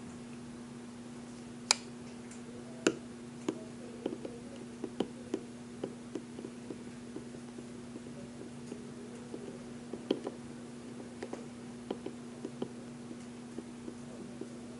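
Quiet classroom room tone: a steady low hum with scattered light clicks and taps at irregular intervals, a few sharper ones about two and three seconds in and again about ten seconds in.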